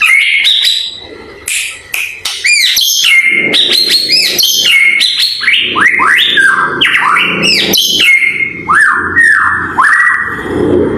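Pied (blorok) white-rumped shama singing a loud, fast, varied song of whistled phrases, many notes sweeping up and down in arcs, mixed with sharp clicks.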